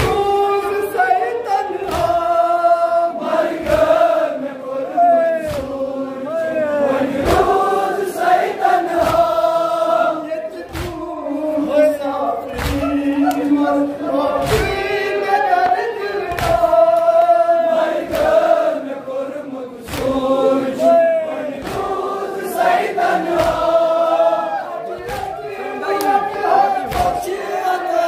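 A male reciter sings a Kashmiri noha, a Muharram lament, into a microphone, with a group of men chanting along. Sharp strokes of chest-beating (matam) keep a beat about once a second.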